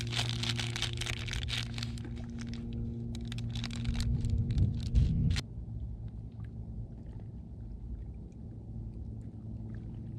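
Plastic bait package crinkling as it is handled, over a steady low hum. About five seconds in both stop suddenly, leaving only a faint low rumble with a few small ticks of handling.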